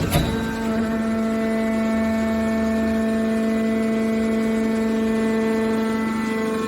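Hydraulic metal scrap baler running, its pump unit giving a steady, even-pitched drone, with a single sharp knock at the start.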